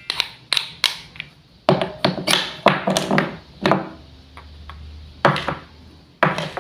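Wooden toy food and a toy knife clicking and tapping: about a dozen sharp, irregular knocks, some in quick runs, some with a short ring after them.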